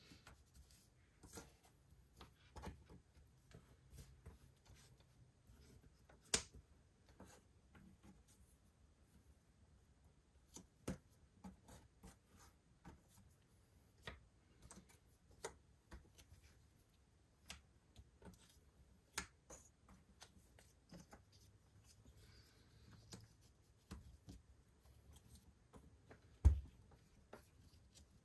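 Jigsaw puzzle pieces being handled: sparse, faint light clicks and taps of pieces on a tabletop, about one or two a second, with one louder knock near the end.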